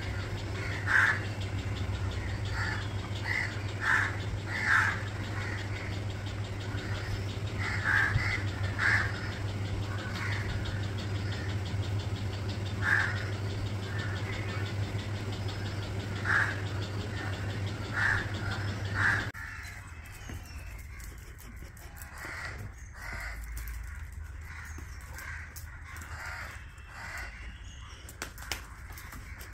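Crows cawing, a dozen or so short calls spaced a second or more apart, over a steady low hum. The hum stops abruptly about two-thirds through, and fainter calls carry on after it.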